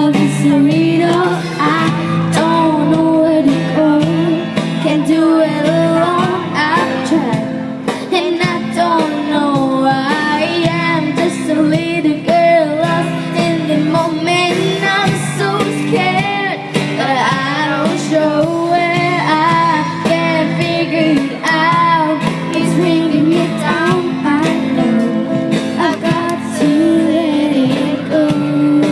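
Pop song: a female voice singing over band accompaniment.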